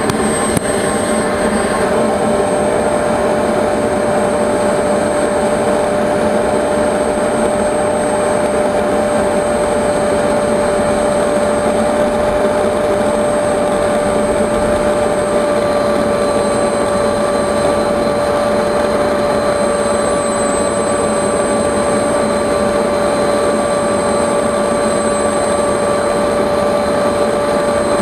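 Model jet turbine in an RC jet running steadily at one speed on the ground, a constant rushing whine with a steady high tone and no spool-up or spool-down.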